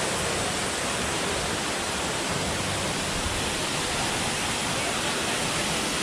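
Steady, even rush of falling water from Lanka Ella waterfall.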